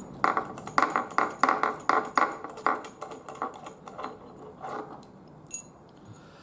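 Small steel wheel-lock parts clinking and clattering as they are handled on a hard surface: a quick run of light metallic clicks for about three seconds, then a few scattered ones.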